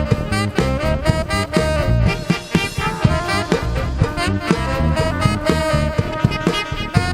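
Live band playing an upbeat tune with a steady drum beat of about two strokes a second under a sustained wind-instrument melody.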